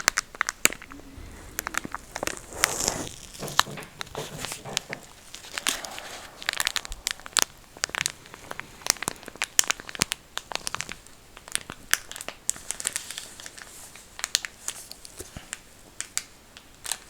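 Close-up crinkling and tapping on a soft plastic packet of cleansing wipes, many sharp taps and crackles in an irregular run.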